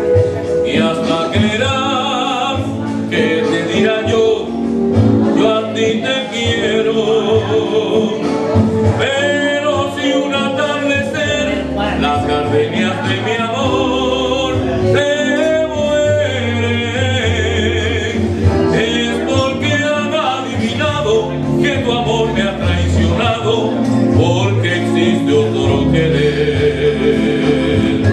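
A man singing a song with a wide vibrato on the held notes, over accompanying music with a steady bass line.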